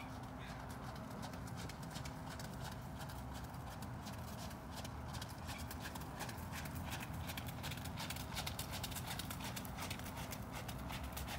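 Hoofbeats of a ridden horse moving around a wet arena, a run of soft thuds on the footing. They grow louder and more distinct from about halfway through as the horse comes nearer.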